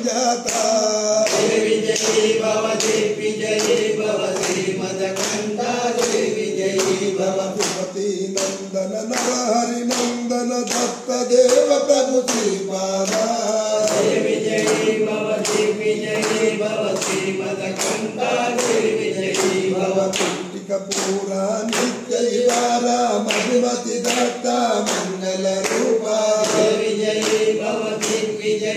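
Several voices singing a devotional chant together, with a steady beat of sharp claps keeping time.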